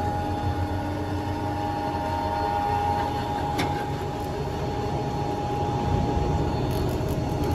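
Mingyang biomass sawdust briquette machine running steadily: a constant machine hum with a steady high tone over it, without change.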